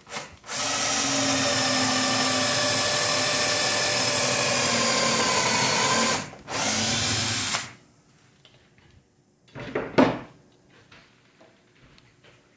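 Cordless drill spinning a Fuller countersink bit into a wooden window casing, a steady run of about five seconds with the pitch dipping slightly near its end, then a short second burst of about a second. A couple of sharp knocks follow about ten seconds in.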